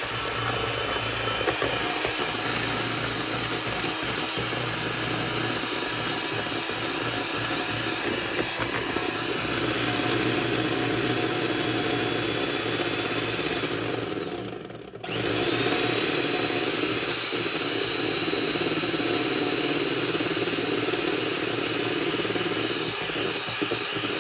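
Electric hand mixer running steadily as its twin beaters whip egg whites into meringue in a stainless steel bowl. About fifteen seconds in it cuts out for a moment and then starts up again.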